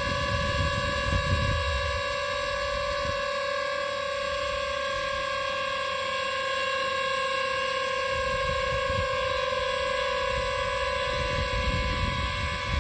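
DJI FPV drone hovering in place, its propellers giving a steady whine at one unchanging pitch. Low rumbling gusts of wind noise come at the start and again near the end.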